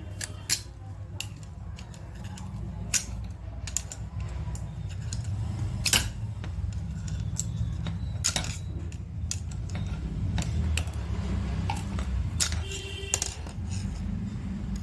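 Small metal parts and tools clicking and knocking now and then, with a sharper knock about six seconds in and again a couple of seconds later, over a steady low hum.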